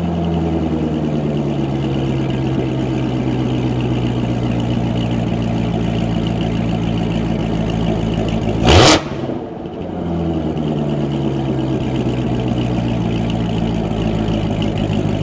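2015 Corvette Z06's supercharged 6.2-litre V8 idling through a Corsa Extreme exhaust with X-pipe. About nine seconds in it gets one quick blip of the throttle that rises sharply and drops straight back, and the idle then settles slowly back down.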